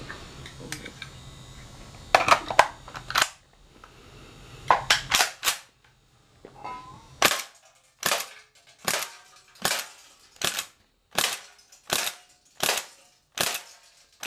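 Shoei G43 air blowback BB rifle firing a steady string of about ten shots, a bit under a second apart, each a sharp clack. Two quicker clusters of clicks come first.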